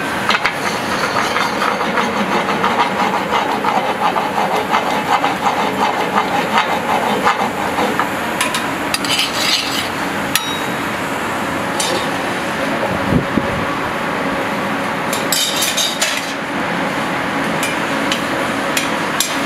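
Portobello mushroom sizzling and crackling as it sears in hot fat in a pan, with a metal spoon clinking against the pans a few times around the middle and later.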